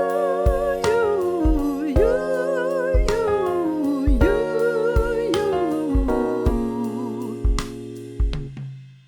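A singer demonstrating vocal riffs and runs: held notes with vibrato that break into quick descending runs, several times over, sung over a backing track of sustained keyboard chords and a kick drum. The track fades out near the end.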